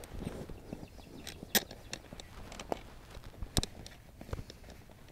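Small mounting hardware and the plastic bracket being handled by hand: scattered sharp clicks and light knocks, the loudest about one and a half and three and a half seconds in.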